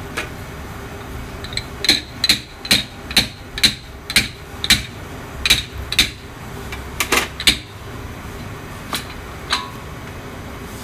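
A hard, stove-toasted amaltas (Cassia fistula) seed pod being struck on a marble countertop to crack its woody shell open. There are about a dozen sharp knocks, roughly two a second, starting about two seconds in, then two lighter knocks near the end.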